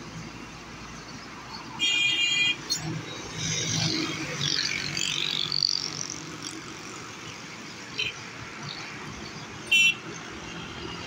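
Road traffic with vehicles passing close by. A vehicle horn sounds loudly for under a second about two seconds in, and a second short horn toot comes near the end.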